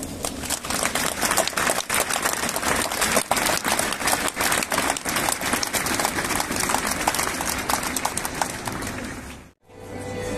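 Audience applauding with steady, dense hand-clapping after a speech, which cuts off suddenly near the end; a violin then begins sustaining notes.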